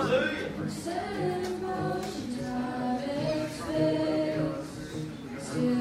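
A group of voices singing a worship song together over steady instrumental backing, with long held notes.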